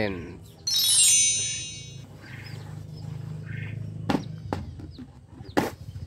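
A bright, twinkling chime sound effect about a second in. After it come faint bird chirps over a low steady hum, and a few sharp clicks near the end.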